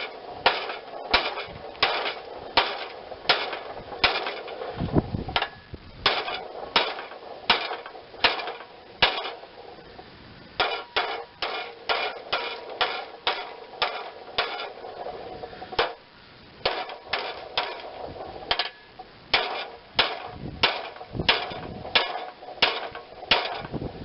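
Hammer blows on the stamped-steel deck of a Craftsman 42-inch riding-mower deck, struck about twice a second with short pauses, the metal ringing after each hit. A bent, opened-up section of the deck is being beaten back into shape.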